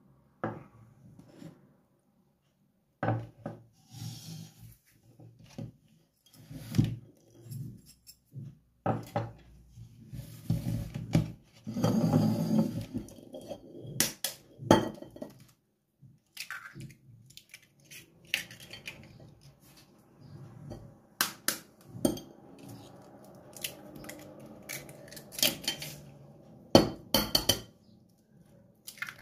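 Kitchen handling sounds: dishes and a plastic mixing bowl knocking and clinking, with sharp taps as eggs are cracked and dropped into the flour.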